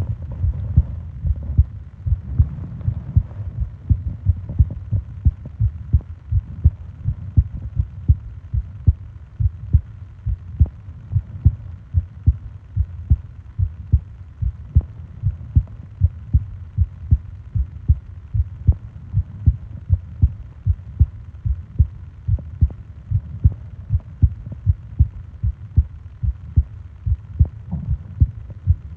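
A human heartbeat heard close up: a steady, regular low thumping pulse. Soft breathing can be heard near the start and again near the end.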